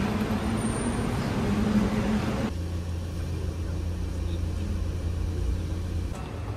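A steady hum with outdoor traffic noise, then an abrupt cut about two and a half seconds in to the low, steady drone of a passenger van's engine heard from inside the cabin.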